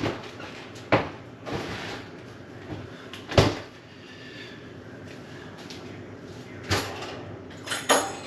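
A refrigerator door being opened and shut, with a solid thud about three and a half seconds in, then a kitchen drawer opened and closed with knocks near the end.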